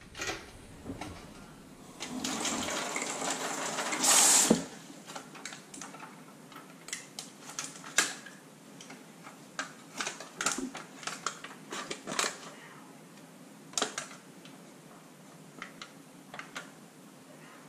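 Water from a bathroom faucet runs for about two seconds into a welded aluminum foil pouch and then stops. After that comes the scattered crinkling and crackling of the thin foil pouch as it is handled.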